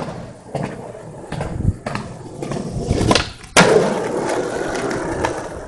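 Skateboard rolling, with a few clacks from the board, then a loud smack about three and a half seconds in as it lands the gap, and the wheels roll on afterwards.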